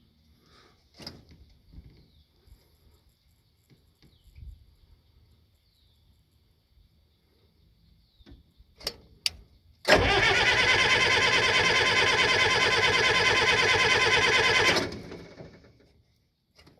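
Bobcat 825 skid steer's diesel engine being cranked by its starter for about five seconds, with the glow-plug heater held down, then stopping abruptly and dying away. A few clicks from the cab controls come before it.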